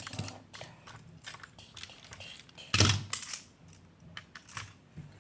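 Plastic magnetic building blocks being handled: scattered small clicks and clacks as pieces snap together and knock against each other, with one louder knock near the middle.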